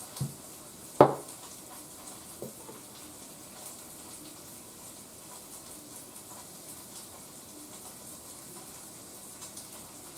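Three short knocks of kitchen containers and utensils being handled, the loudest about a second in, followed by a low steady kitchen background.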